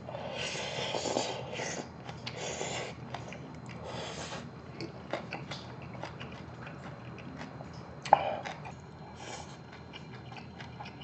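A person slurping up mouthfuls of spicy braised monkfish and bean sprouts in three hissing slurps over the first four seconds or so, then chewing with small wet clicks. There is one brief louder mouth sound about eight seconds in.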